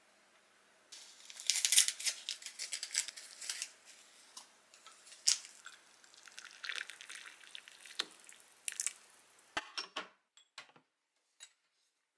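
Paper packaging rustling and tearing as a tea bag is taken out and opened, then water poured into a ceramic mug over the tea bag, splashing and trickling for several seconds. A few light knocks near the end.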